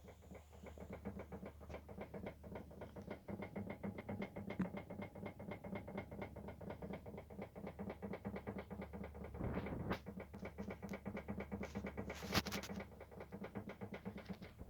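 Rapid, continuous knocking from a Volvo XC90's steering with the engine off, which the owner suspects comes from the steering rack. Two louder knocks stand out in the second half.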